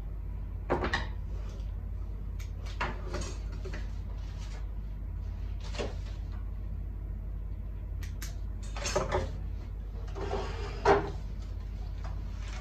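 Hands tying and handling a small bouquet and tools on a wooden worktable: about five short rustles and knocks, the loudest near the end, over a steady low hum.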